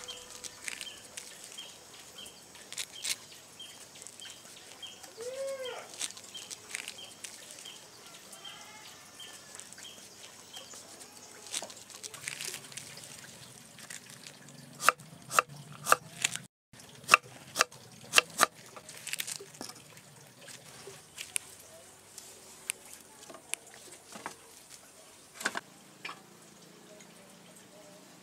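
Large knife chopping young jackfruit on a wooden board: scattered sharp chops, with a quick run of about half a dozen loud ones past the middle. Birds call in the background, and a faint regular high chirping runs early on.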